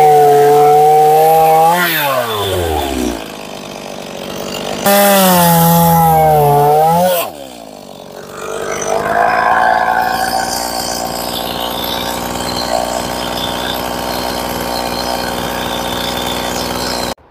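Small two-stroke chainsaw, a Stihl MS 170, cutting into a fresh poplar stump: two bursts at full throttle, the pitch sagging under load in the second, each falling away as the throttle is released. The saw then idles steadily and stops abruptly near the end.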